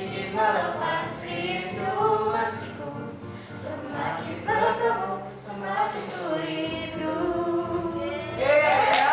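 A woman singing a song over backing music, getting louder near the end.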